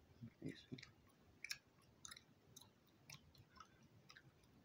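Faint, irregular smacking of chewing gum, with wet mouth clicks about every half second.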